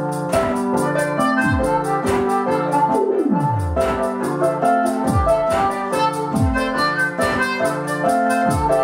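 Instrumental break of a live band: a harmonica played cupped against a hand-held microphone, holding chords and bending one note down about three seconds in, over a steady drum beat.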